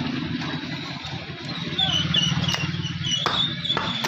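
Steel meat cleaver striking mutton on a wooden chopping block, three sharp chops in the second half, over the steady hum of an engine running.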